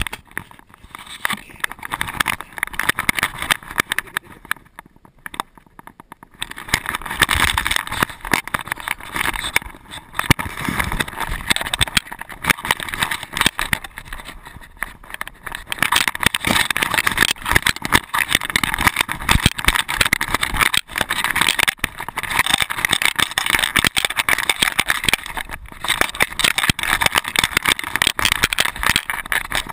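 Constant rubbing, rattling and knocking of a GoPro camera loosely strapped to a moving dog, with a brief quieter lull about five seconds in.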